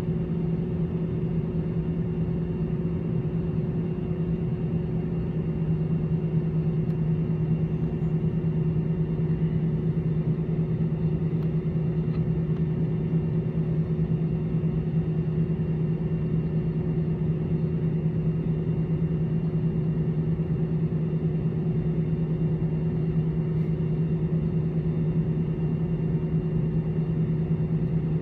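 Airbus A318-111's CFM56-5B engines idling, heard inside the cabin as a steady drone with a constant low hum, the aircraft on the ground at taxi idle before takeoff.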